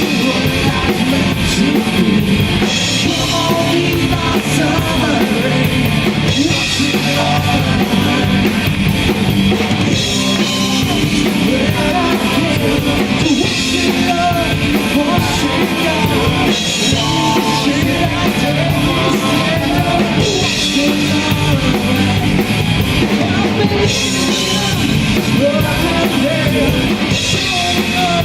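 Rock band playing live at a steady loud level, with a drum kit and a melodic line over a dense band mix.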